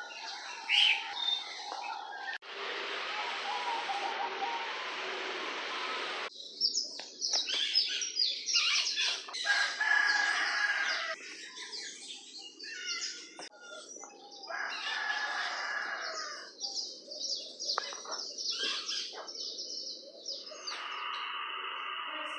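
A crowd of birds calling and chirping, with dense overlapping short calls through the middle. A steady hiss runs from about two to six seconds in, and there is a steady high hum near the end.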